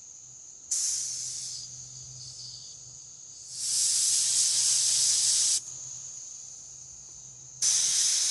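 Air-powered paint spray gun hissing in bursts as the trigger is pulled: a short burst about a second in, a longer one of about two seconds in the middle, and another starting near the end. A fainter steady hiss and a low hum continue between the bursts.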